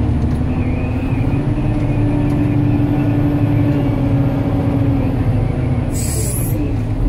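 Cat 988H wheel loader's C18 diesel engine running under load, heard from inside the cab, with a steady whine that rises a little and then falls back. A brief sharp hiss about six seconds in.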